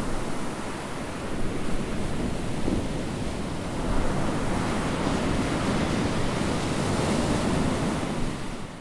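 Ocean surf washing in a steady rush that swells and eases, fading out near the end.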